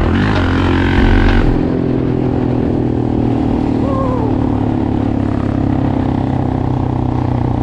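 Yamaha Raptor 700R ATV's single-cylinder engine, louder for about the first second and a half, then running steadily at low, even revs.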